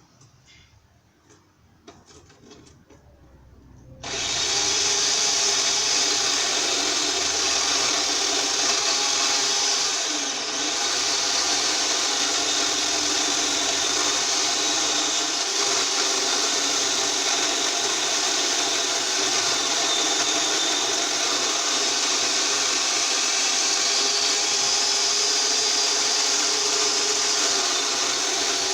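A power saw starts about four seconds in and runs steadily while cutting into a tree limb, its pitch sagging briefly as it bites into the wood.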